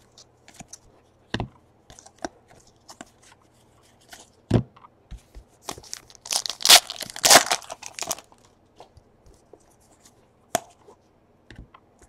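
Foil wrapper of a 2017 Donruss baseball card pack torn open and crinkled, starting about six seconds in and lasting a couple of seconds. Scattered light clicks and taps from the pack and cards being handled come before and after.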